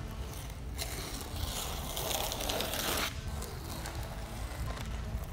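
Protective backing paper being peeled off a carbon polyweave splitter panel: a rustling, tearing noise that starts about a second in, grows louder, and stops suddenly about three seconds in.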